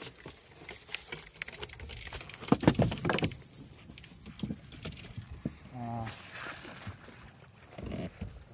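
Knocks and rattles of fishing gear being handled on a boat, the loudest a cluster of thumps about two and a half seconds in. Behind them runs a steady high-pitched insect trill.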